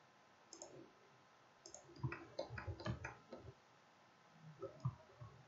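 Computer mouse clicking as a CAD model is worked on screen: a quick run of clicks about two seconds in and a few more near the end.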